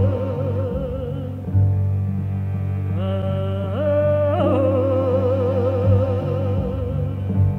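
Dramatic trailer music: a high operatic-style vocal line with wide vibrato over a steady low bass drone. The melody slides upward twice near the middle.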